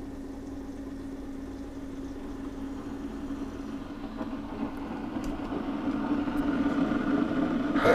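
Keurig single-serve coffee maker running before it dispenses: a steady hum that grows louder over the last few seconds, ending in a short, sudden burst of louder sound.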